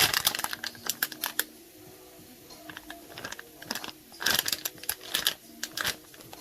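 Cooking utensil clicking and scraping against a pan in runs of quick strokes: a run at the start, then another, louder run from about four seconds in.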